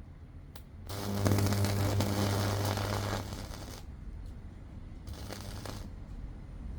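High-voltage arc from a microwave oven transformer (about 2 kV) across the terminals of a thin LED strip circuit board: a crackling, buzzing discharge with a deep mains hum, starting about a second in and lasting about three seconds, then a second shorter, weaker burst near the end.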